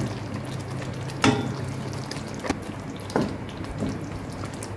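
A long spoon stirring thick chicken curry gravy in a steel pot: wet stirring sounds, with a few sharp knocks of the spoon against the pot, the loudest about a second in.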